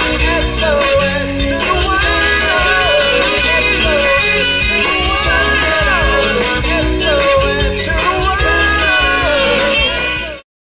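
A band plays a song with drums, bass guitar, electric guitars and a gliding lead melody. The music cuts off abruptly near the end.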